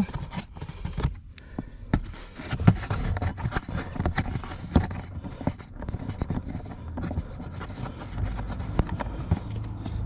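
Irregular clicks, taps and scrapes of hands unscrewing plastic nuts and handling the polystyrene cover over the cabin filter housing.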